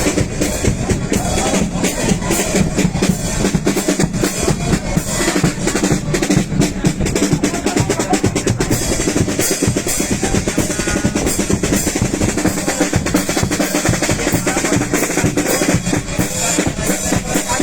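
A Cádiz carnival comparsa's percussion, snare drum (caja) and bass drum (bombo), playing a dense rhythm of many strikes a second.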